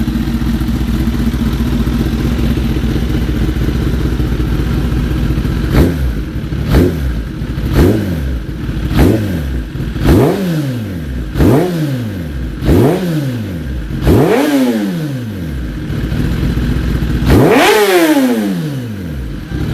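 Kawasaki ZX-10R inline-four with an M4 GP exhaust idling steadily, then blipped on the throttle eight times, about once a second. It then takes one longer, higher rev and falls back to idle near the end.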